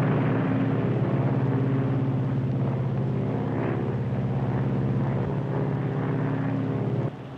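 Lockheed Super Constellation's piston engines droning steadily in flight with two of its four propellers feathered, purring along on the two engines still running. The drone cuts off suddenly shortly before the end.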